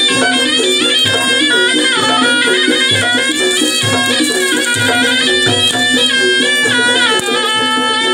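Traditional music: a high, reedy wind instrument playing a winding melody over a drum beating about once a second.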